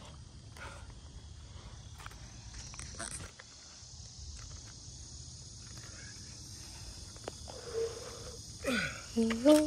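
Steady high chorus of insects outdoors over a low rumble of wind on the microphone, with a few faint knocks. Near the end comes a short, louder pitched sound with gliding tones, from a voice or an animal.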